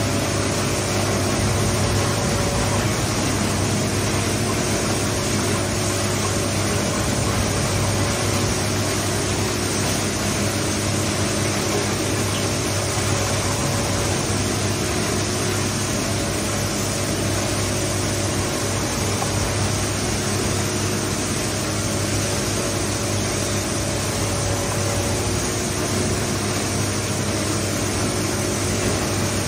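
Industrial shredder (silage/straw shredder) running steadily with a constant hum and drone and no knocks or grinding.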